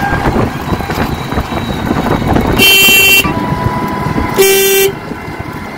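A vehicle horn beeps twice, two short blasts a little under two seconds apart, over the steady rumble of a moving vehicle on a paved road.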